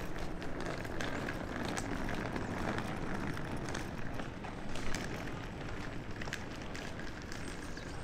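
Steady outdoor city-park ambience heard while walking, with footsteps and scattered small clicks over a constant background hum.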